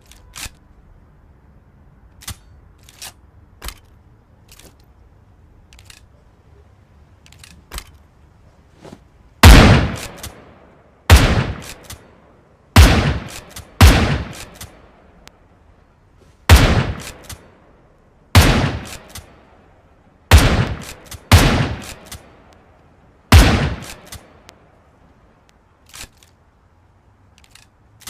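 Shotgun firing nine loud shots, one every one to three seconds, each with a short ringing tail. A few light clicks come before the first shot and after the last.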